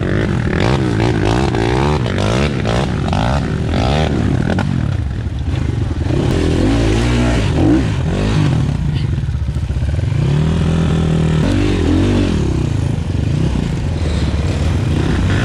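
Several enduro dirt bike engines close by, revving up and down over and over as they work through mud and a climb, one engine overlapping another.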